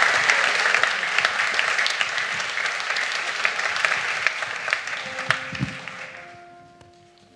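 Theatre audience applauding after a song. The clapping fades away over the last couple of seconds as a few soft held notes come in.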